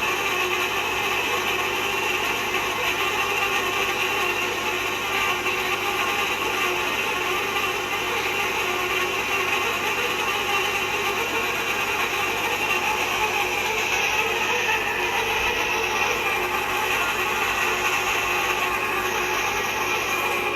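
Manual hot tapping machine cutting into a steel pipe: a continuous, steady mechanical grinding and ratcheting as the cutter is cranked through the pipe wall.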